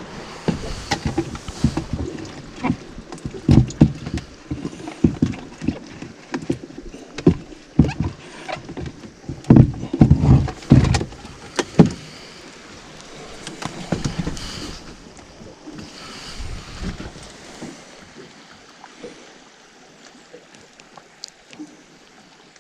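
Water slapping and knocking against the hull of a small fishing boat as it rocks: a run of irregular low thumps that eases off about halfway through, leaving a soft steady hiss.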